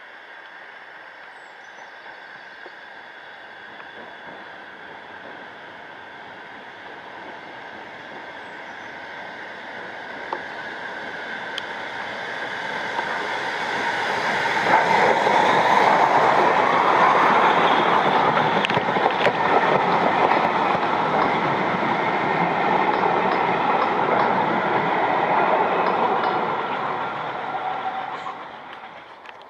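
BR (NER) J72 0-6-0 tank engine No. 69023 working a train of coaches past. The sound of the locomotive and the train on the rails grows louder as it approaches, is loudest for about a dozen seconds as it passes, and fades near the end.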